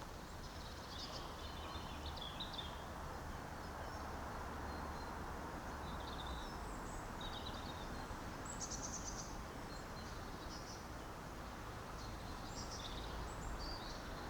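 Birdsong: short high chirps and twittering phrases from birds, scattered throughout, over a steady low background rumble.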